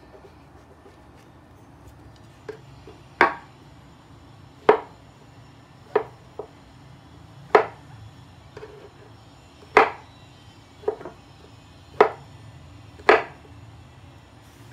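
Kitchen knife chopping a king oyster mushroom cap on a wooden cutting board: about ten sharp knocks of the blade on the board, spaced roughly a second apart, starting a couple of seconds in.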